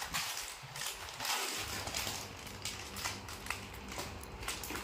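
Plastic snack packets and bag crinkling and rustling as they are handled, with irregular small clicks and crackles, busiest in the first second and a half.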